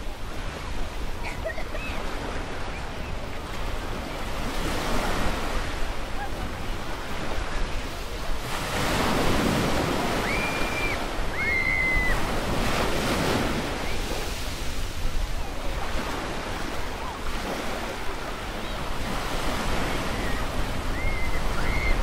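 Small waves washing onto a sandy beach, the surf swelling and easing every few seconds. A few short high whistles sound over it, a pair about halfway.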